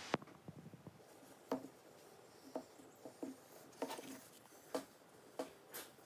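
Handling noise from a Ring video doorbell's plastic housing being turned over in the hands: a sharp click right at the start, then a scatter of soft taps and knocks, roughly one every half second to a second.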